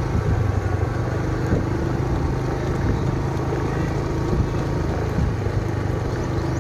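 Motor scooter engine running steadily at an even speed, with a continuous low hum.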